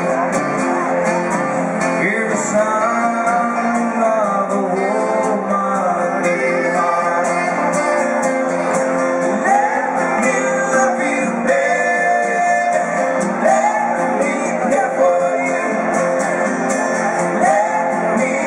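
Live band music: a singer over guitar and the band, playing steadily.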